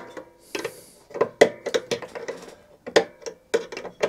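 Irregular sharp metal clicks and knocks of a screwdriver and circlip against a lawnmower's height adjustment bar as the circlip is worked into place.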